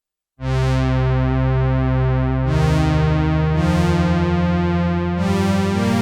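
Sequential Prophet-6 analogue polyphonic synthesizer playing a factory preset: sustained chords over a held bass note, starting about half a second in. The chord changes three times, and each change opens with a bright attack that mellows as the note holds.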